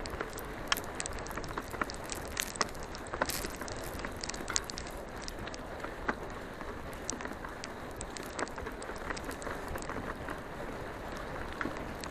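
Tyres of a dog-drawn bike rolling fast over a dirt trail: a steady rushing rumble with many irregular sharp ticks and crackles.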